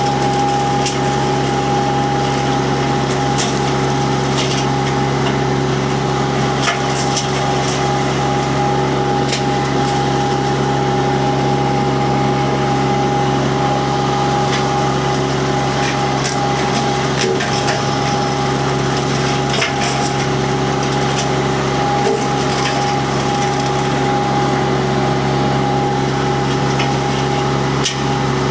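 Mini skid steer with a hydraulic disc mulcher running steadily at full work, with a constant high whine over the engine drone, while the spinning disc cuts into wood with scattered sharp cracks and chip impacts.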